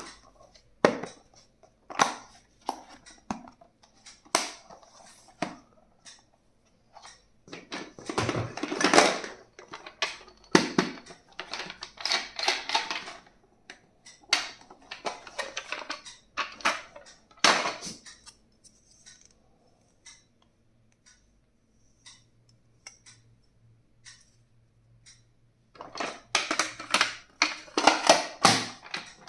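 Stationery items and their packaging being handled: sharp clicks and knocks of small hard objects, with two longer stretches of rustling, crinkling packaging, one about a third of the way in and one near the end.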